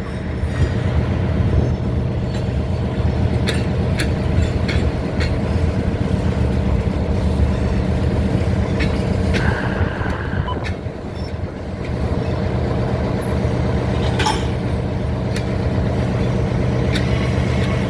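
Diesel locomotive engine running steadily, with scattered sharp clicks and knocks.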